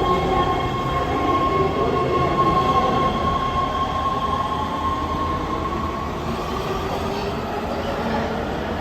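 LA Metro subway train moving through an underground station: a steady rumble with a high steady tone that fades out about seven seconds in, the whole sound slowly getting quieter.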